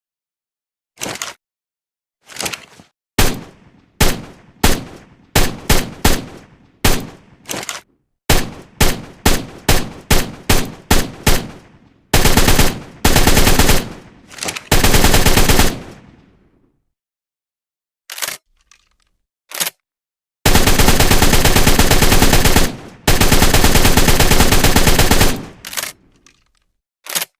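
Assault rifle gunfire sound effect. Single shots, each with a short decaying tail, come about one or two a second and then faster. Then there are long bursts of full-automatic fire, the longest lasting a couple of seconds, with pauses between.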